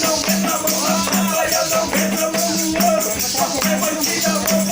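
Live church worship music: a band with a repeating bass line and shaken hand percussion keeping a steady rhythm, with voices singing over it.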